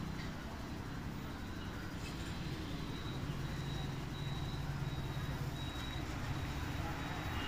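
Steady low background hum with a faint high tone coming and going: room tone, with no distinct event.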